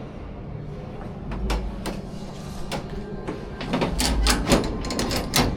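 A run of sharp clicks and knocks, sparse at first and crowding together in the second half, with a few low thuds.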